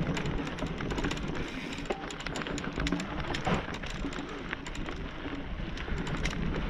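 Mountain bike rolling down a dirt forest trail: tyre noise on the dirt with frequent small clicks and rattles from the bike, over a low rumble.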